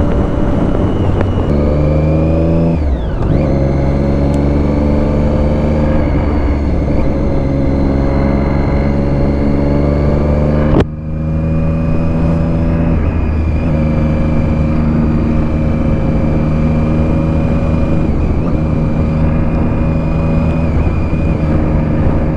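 Triumph Daytona 675's three-cylinder engine running under way, heard close up from the rider. It is a steady engine note that steps down in pitch a couple of times, with a sharp click and a brief dip in level a little past halfway.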